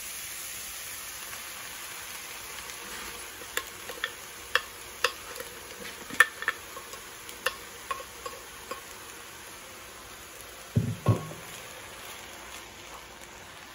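Shredded chicken sizzling steadily in a hot sauté pan as thick chipotle sauce is poured over it, with a run of sharp clicks and taps as a spatula scrapes sauce out of a plastic blender jar. Two dull knocks come near the end.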